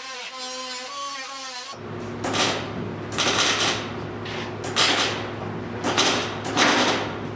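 Background music briefly, then an arc welder crackling in about five short bursts a second or so apart over a steady electrical hum, as sheet-metal patches are welded into the car's body.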